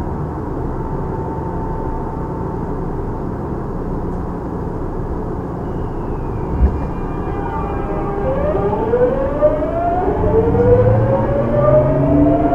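Tokyu 9000 series commuter train heard from on board: a steady running rumble, then about six seconds in the early Hitachi GTO-VVVF inverter comes on. Its whine steps through several tones and then rises in pitch and gets louder as the train accelerates under power.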